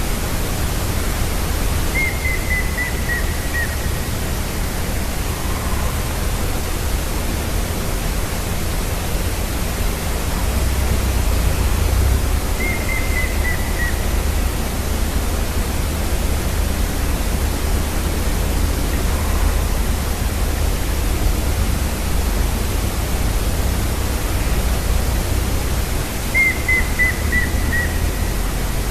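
Grey-headed woodpecker singing three times, about 10 to 14 seconds apart. Each song is a short series of about six whistled notes that step down in pitch. Under it runs a steady rush of background noise with a low rumble.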